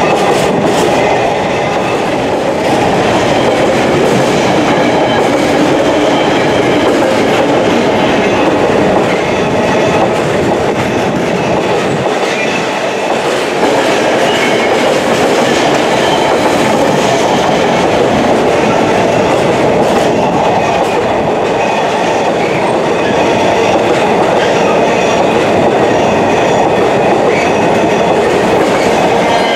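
Container freight train's flat wagons rolling past close by, a loud, steady noise of wheels running on the rails.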